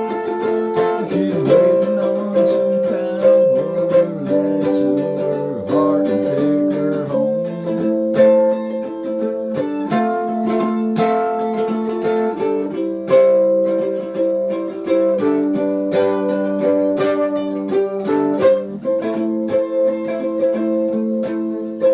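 Homemade cigar box mandolin with a single-coil pickup playing an instrumental bluegrass-style break: quickly picked notes over ringing chords.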